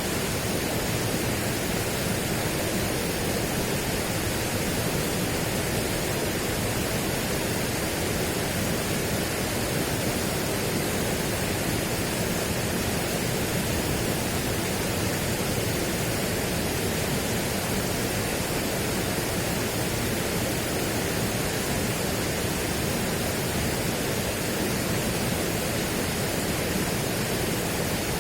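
Steady, unchanging rushing noise spread evenly from low to high pitches, with no separate events.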